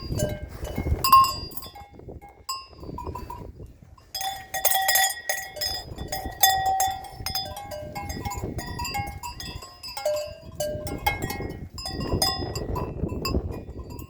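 Bells on grazing cattle clinking and clanking irregularly, short ringing notes at several different pitches, over low rustling.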